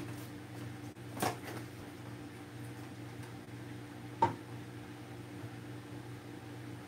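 Plastic food tubs being handled on a kitchen counter: a soft knock about a second in and a sharper single tap about four seconds in, over a steady low hum.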